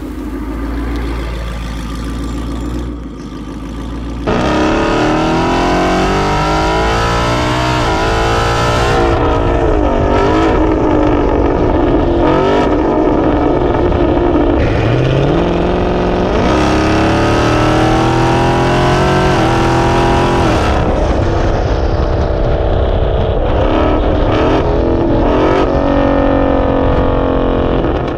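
Twin-turbocharged Coyote 5.0 V8 of a Mustang GT running through an aftermarket Corsa catback exhaust, heard close to the tailpipe. It runs lower at first, then about four seconds in it turns loud, accelerating hard with the pitch rising and dropping back several times at gear changes before running more steadily.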